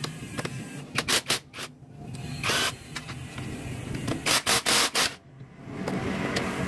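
Cordless impact wrench hammering in short bursts as it loosens scooter shock and frame bolts: three quick bursts about a second in, a longer one a little later, then a cluster of four, the loudest, around four to five seconds in.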